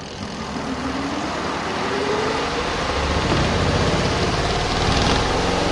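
Compact RV washing machine starting its final spin: the motor hum and whine climb steadily in pitch as the drum speeds up, getting louder over the first couple of seconds and then holding.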